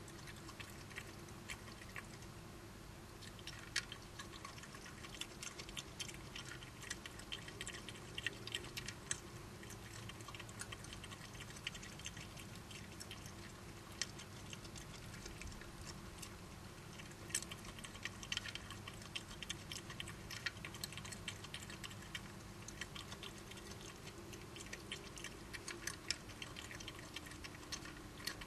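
Badgers eating: many small, irregular crunches and clicks of food being chewed, over a steady low hum.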